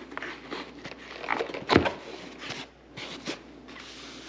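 Insta360 X3 box and its packaging being handled: irregular rustling, scraping and light knocks, the loudest a little under two seconds in.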